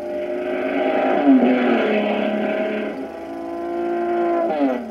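Racing car engine at speed on an old film soundtrack, its pitch dropping about a second and a half in as the car passes. Another sharp downward sweep in pitch comes near the end.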